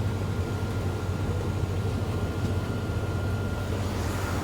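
A 2012 IC BE school bus heard from inside while under way: its MaxxForce 7 V8 diesel engine runs with a steady low drone over road noise. A faint, thin high tone fades out near the end.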